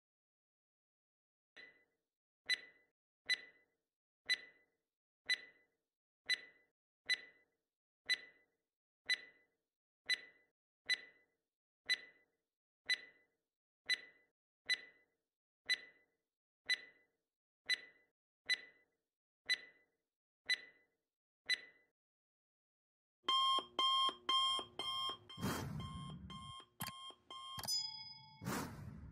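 Countdown-timer sound effect: a clock ticking about once a second for some twenty seconds, then an alarm clock ringing in rapid beeps as time runs out, followed by a short chime near the end.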